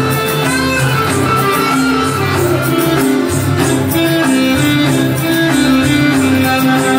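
Dance music with plucked strings over a steady beat, playing for a group dance.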